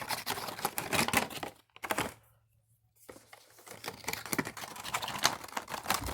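Toy figure boxes being opened by hand: dense crackling and crinkling of cardboard and packaging, with a brief pause about two seconds in.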